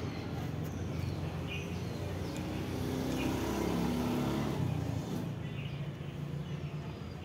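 A motor vehicle engine running with a steady low hum that swells about three seconds in and eases off after about five seconds.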